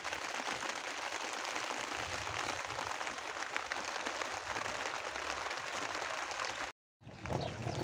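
Heavy rain falling steadily, a dense patter of countless drops. The sound cuts out for a moment near the end and comes back with more low rumble.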